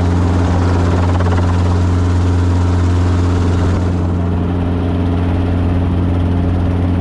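Light helicopter's engine and rotor droning steadily, heard from inside the cabin as it lifts off and flies low over the ground; the high hiss eases a little about four seconds in.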